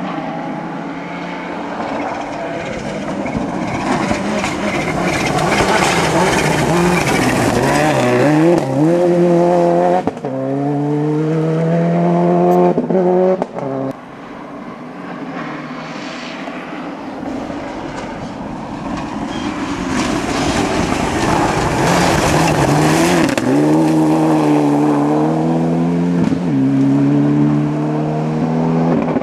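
Rally cars at full throttle on a stage, engines revving hard and rising and falling in pitch through gear changes as they come close. It happens twice, with a sudden break about a third of the way in and again near the middle.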